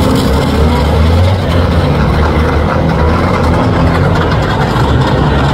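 Banger racing cars' engines running, a steady, loud mix of engine noise.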